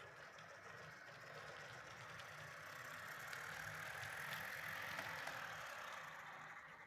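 Faint whirring and rattling of a Jouef TGV model train's motor and gearing as it runs along the track. It grows louder to a peak around four to five seconds in, then fades as the train moves away. The noise is from crude gearing and a low-quality motor, in the owner's view.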